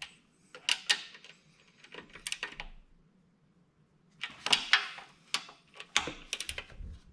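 Torque wrench ratcheting on the intake bolts of a 168F single-cylinder diesel engine, in several short bursts of clicks as the bolts are worked down side to side toward 9 foot-pounds.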